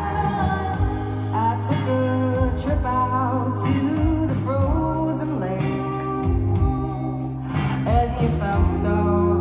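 A band playing live in a concert hall, heard from the audience: female voices singing over guitars, bass and drums.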